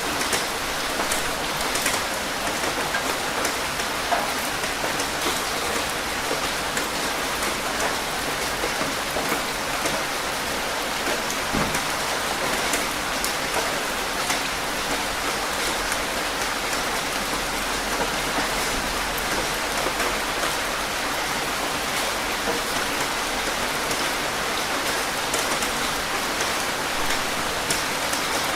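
Steady rain falling on a surface, with many individual drops ticking over an even hiss.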